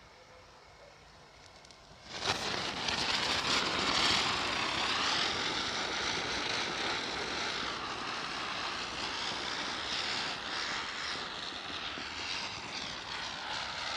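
Two ground spinner fireworks (chakri) catch about two seconds in and whirl together with a loud, steady, whooshing hiss. Its pitch wavers up and down as they spin, and it eases off slightly near the end.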